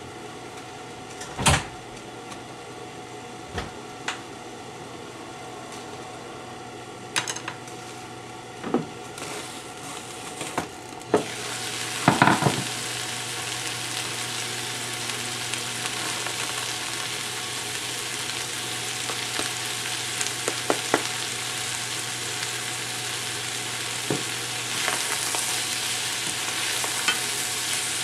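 Spinach cooking under a glass lid in a frying pan, a steady low hum with a few sharp knocks, until the lid comes off with a loud clatter about twelve seconds in. From then on the greens fry with a continuous sizzle, with light clicks of chopsticks stirring them.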